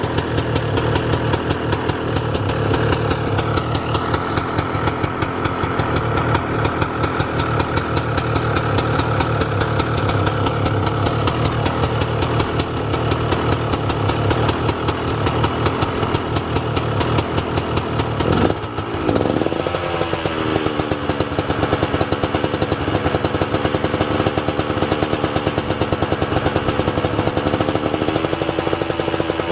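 KTM 125 SX's single-cylinder two-stroke engine idling on a stand while it warms up after a cold start, in rapid, even firing pulses. The sound breaks briefly about eighteen seconds in, then settles back to a steady idle.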